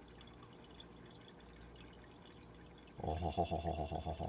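Faint steady bubbling and trickling of an aquarium air stone. About three seconds in, a louder wavering 'oh' from a man's voice, pulsing quickly for over a second.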